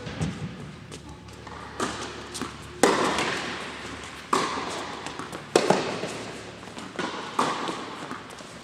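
Tennis balls being hit by racquets and bouncing on a hard indoor court in a rally: about eight sharp pops at uneven intervals, each ringing on in the echo of the large hall.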